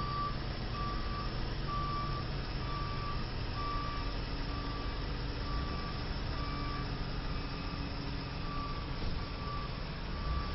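Heavy tow truck's backup alarm beeping steadily, a little under once a second, as the truck reverses, over the low rumble of its diesel engine.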